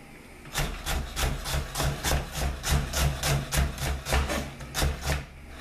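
Chef's knife chopping carrot into small dice on a wooden cutting board: steady knocks of the blade on the wood, about four a second, starting about half a second in and pausing near the end.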